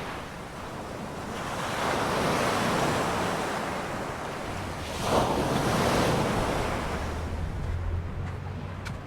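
Sea surf washing onto the beach, swelling twice as waves break, about two seconds in and more sharply about five seconds in, with wind buffeting the microphone.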